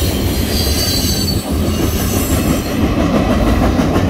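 Freight train gondola cars rolling past: a steady rumble of steel wheels on rail, with thin high wheel squeal that fades out about three seconds in as the last car goes by.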